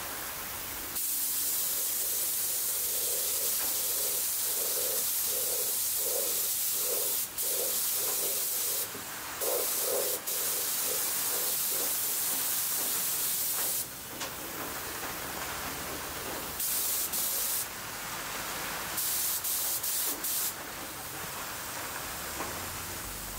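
Air spray gun hissing as it lays a final coat of 2K clear lacquer. It runs in one long pass with a few brief trigger releases, stops around two-thirds of the way through, then comes back in several short bursts.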